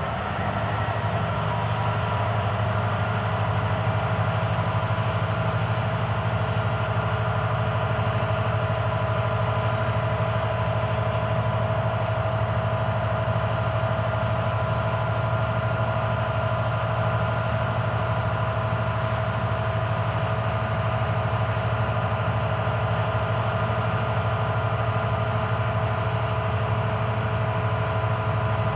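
EMD SD70-series diesel helper locomotives running under heavy load to start a loaded coal train. The engines' pitch climbs over the first few seconds as they throttle up, then holds as a steady, loud hum with a whine above it.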